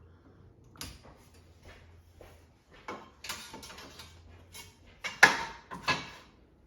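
Knocks and clatter of an iced-up freezer being worked on by hand as pieces are pried and pulled out. There is a click about a second in, a rattling scrape around three seconds in, and two sharp clunks near the end, the first of them the loudest.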